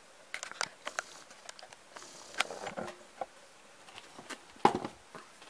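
Hands working a plastic TL-4M analogue multimeter: a string of short plastic clicks and knocks with light rustling, the sharpest click about four and a half seconds in.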